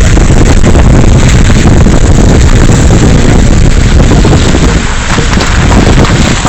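Loud, steady wind noise on the microphone of a moving vehicle, over the low rumble of the vehicle running along a rough road.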